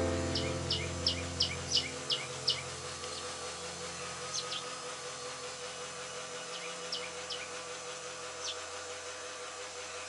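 House sparrows chirping: a quick run of short chirps in the first two or three seconds, then a few single chirps. Under them, held notes of background music fade out.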